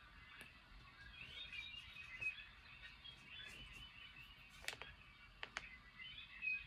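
Faint, busy bird chirping: many short high notes throughout, with a few light clicks late on.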